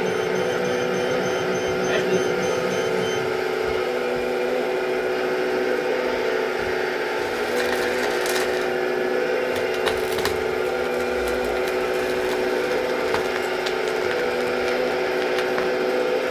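Hydraulic drive of a MAGOM HRC radio-controlled model excavator whining steadily as the boom and bucket move. Around the middle, gravel scrapes and clicks as the bucket digs into the pile.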